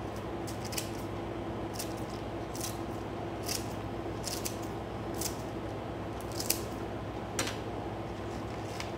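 Kitchen scissors snipping crisp lettuce leaves, a sharp cut roughly once a second at an uneven pace, over a steady low hum.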